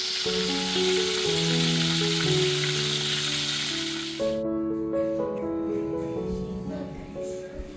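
Food sizzling as it fries in a pan, cutting off suddenly about four seconds in, under background music.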